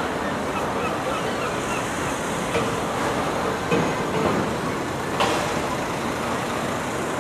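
Busy city street ambience: a steady wash of road traffic with passers-by talking indistinctly and a couple of short knocks.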